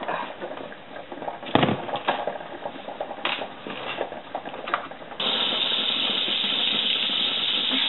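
Butter melting in a frying pan: a faint crackle with a few knocks, then about five seconds in a steady, louder sizzle of the fully melted butter starts abruptly.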